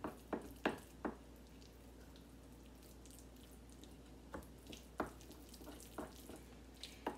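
Wooden spoon stirring a thick mashed sweet-potato mixture in a ceramic bowl, giving soft scattered clicks and knocks as it hits the bowl: a few in the first second, more in the second half.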